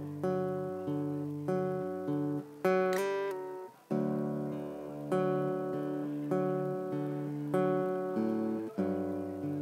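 Solo acoustic guitar with no singing: chords struck about once every second and a bit, each left to ring and fade. About three seconds in comes a quick run of bright high notes, then a brief break before the chords start again.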